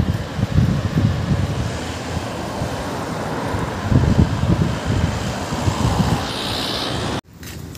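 Steady rush of city road traffic, many cars and their tyres passing on a multi-lane road, with wind buffeting the microphone in gusts. The sound cuts off abruptly near the end.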